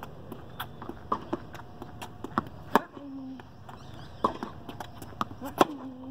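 Tennis rally on a hard court: sharp pops of racket strikes and ball bounces, the loudest a little under three seconds in and again near the end, with lighter taps between them and two brief squeaks.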